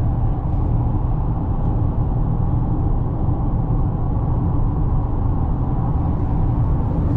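Steady road and engine rumble inside a moving car's cabin at highway speed.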